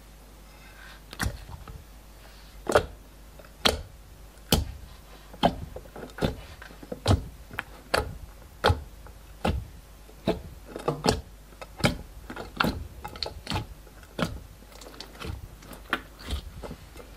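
Fingers poking and pressing into glossy clear slime, making a sharp pop with each press, over and over roughly once a second.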